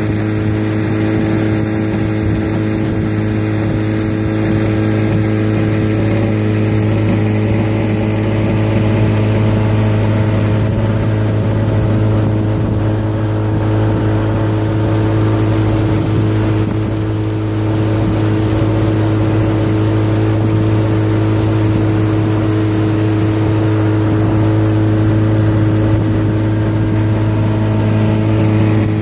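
A small aluminium boat's motor running steadily under way, holding one even pitch with no change in speed.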